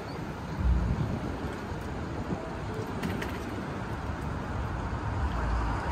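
City street noise: a steady rumble of traffic, swelling briefly about a second in.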